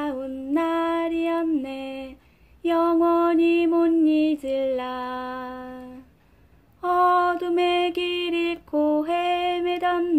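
A woman's voice singing a hymn unaccompanied, in slow phrases of long held notes with short breaths between them.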